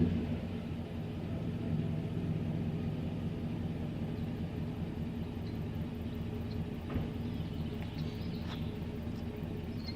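2002 Chevrolet Avalanche Z71's V8 idling through Flowmaster 40 Series mufflers on a true dual exhaust, dropping back from a rev in the first second and then running at a steady idle. A faint click about seven seconds in.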